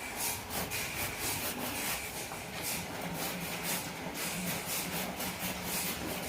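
Wood being sawn with rhythmic back-and-forth strokes, about two to three rasping strokes a second, with a steady low hum joining about halfway through.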